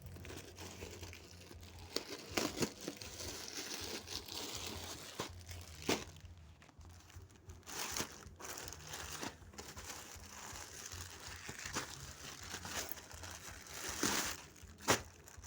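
Plastic packaging of a laptop bag being handled and opened, crinkling irregularly with several sharp crackles.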